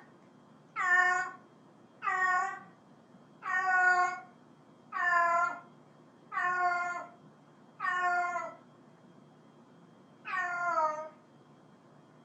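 A cat meowing over and over, seven meows about every second and a half, with a longer pause before the last one; the later meows drop in pitch at the end.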